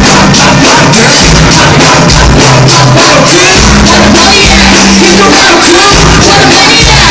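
Loud live hip-hop track over a venue PA: a deep bass line and a steady drum beat.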